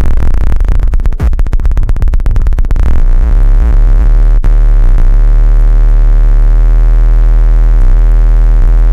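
Loud, distorted electronic feedback from a Gemini CDM-3600 DJ all-in-one unit whose own output is patched back into its mic input. It stutters in rapid pulses for about three seconds, then settles into a steady, heavy, low buzzing drone.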